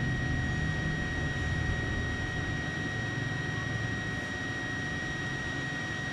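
Electric water booster pump running steadily: a low hum with a steady high-pitched motor whine over it.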